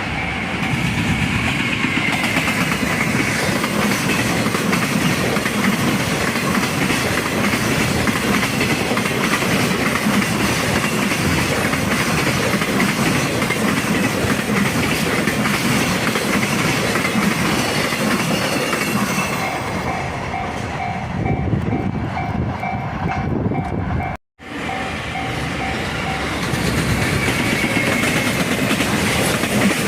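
Freight train passing close by at full speed, a loud continuous rumble of the locomotive and wagons on the rails, with a level-crossing warning bell ringing in an even pulse at the start and again about 20 seconds in. The sound cuts off abruptly about 24 seconds in, and a passing train's rumble picks up again.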